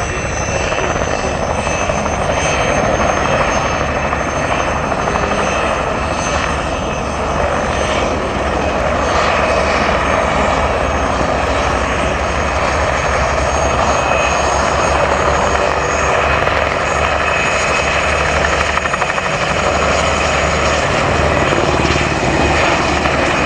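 Mil Mi-2 helicopter in low flight: the high, steady whine of its twin turboshaft engines over the continuous chop of the main rotor.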